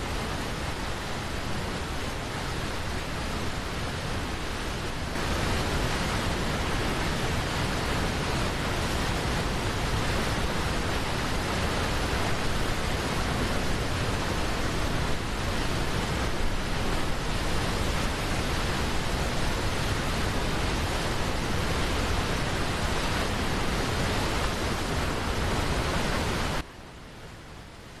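Waterfall pouring into its plunge pool: a steady, dense rush of falling water. It gets louder about five seconds in, then drops suddenly near the end to the softer rush of a shallow river over rocks.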